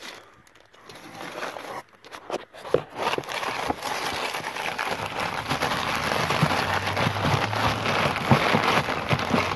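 Crumpled newspaper packing rustling and crackling as a hand digs through a cardboard box, light and scattered at first, then dense and continuous from about three seconds in.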